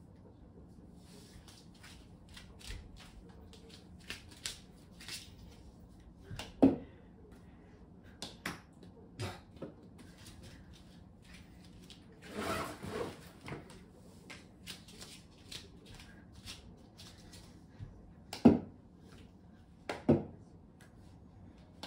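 A small rubber super ball bouncing and skittering on a wooden floor, mostly light taps and clicks, with three louder thuds: one about seven seconds in and two close together near the end. A short rustling scuffle comes about halfway through.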